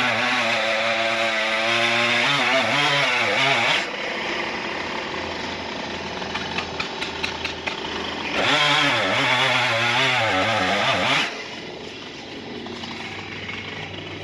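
Two-stroke chainsaw cutting into a large oak trunk, running at high throttle with its pitch wavering under load. It eases off about 4 s in and again about 11 s in, with a short run of faint clicks in the first lull.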